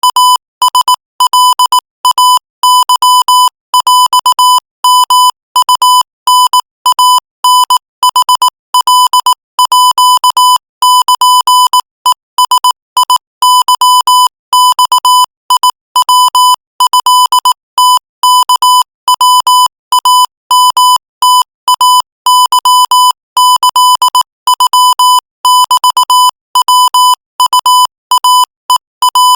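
Morse code keyed at 22 words per minute: a single steady-pitched beep switched on and off in rapid runs of short dots and longer dashes, with brief gaps between characters.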